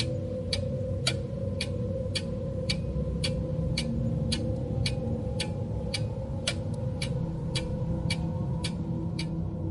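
Clock ticking steadily, about two ticks a second, over a low steady drone.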